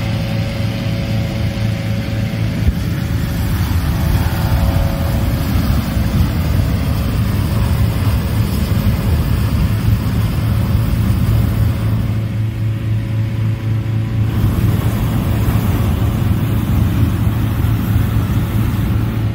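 Gas-engine inflator fan running steadily at full power, blowing cold air into a hot air balloon envelope during cold inflation.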